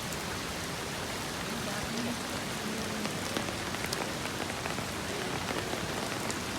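Heavy rain falling steadily on hard surfaces, a dense even patter with scattered sharper drop ticks.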